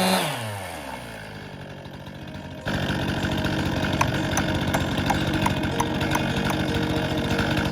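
Stihl MS261c chainsaw coming off full throttle, its revs falling quickly to idle. About a third of the way in, a louder engine sound cuts in abruptly and idles steadily, with regular ticks about three times a second.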